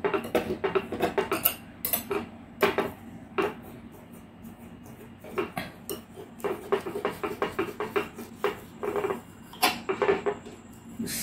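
A metal knife cuts through frozen almond kulfi in a glass baking dish, clicking and scraping against the glass in quick runs of strokes, with a quieter pause about halfway through.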